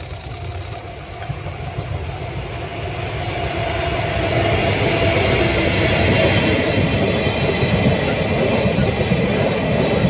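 JR ED75 electric locomotive and its train of blue passenger coaches passing close by: the rumble and clatter of wheels on the rails grows louder over the first five seconds, then holds steady as the coaches roll past.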